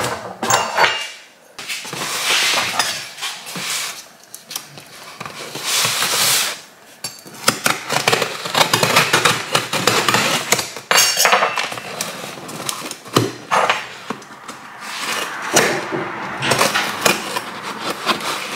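Cardboard shipping box being opened by hand: packing tape cut along the top and the flaps worked loose, with irregular rustling and scraping of cardboard and frequent sharp knocks and taps against the box.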